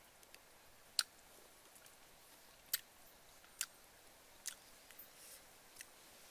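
A person eating and chewing sugar-glazed potatoes from a spoon, with half a dozen sharp, crisp clicks spread through.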